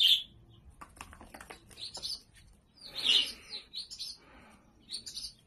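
Baby chicks peeping: short, high chirps in several bursts, the loudest right at the start.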